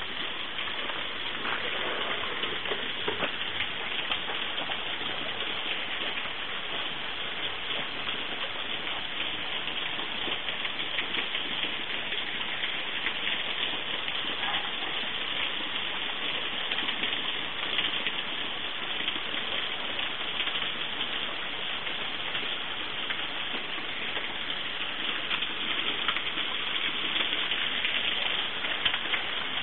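Water of a small waterfall falling and splashing steadily onto rock and into its pool.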